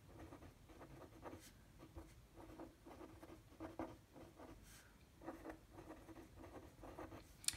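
Pen writing on paper: a quick run of faint, short scratchy strokes of handwriting.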